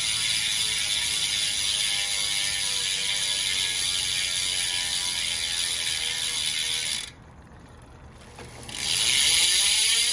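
DT Swiss 350 rear hub with the 54-tooth Ratchet upgrade freewheeling in a spinning Roval CL50 wheel: a loud, fast buzz of ratchet clicks. About seven seconds in it goes nearly silent for about two seconds while the cranks drive the wheel, then the freewheel buzz comes back louder.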